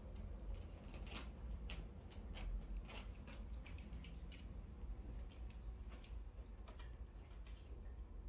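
Faint, irregular scratches, ticks and rustles of a Scottish fold kitten's claws catching in fabric cushions as it scrambles up them, over a low steady hum.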